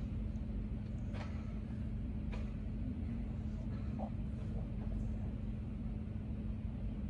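Steady low background hum, with a faint tone near the bottom, and three faint clicks a little over a second apart in the first few seconds.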